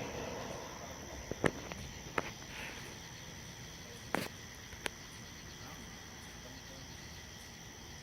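Crickets chirping steadily at night, with a few sharp clicks in the first five seconds, the loudest about one and a half seconds in.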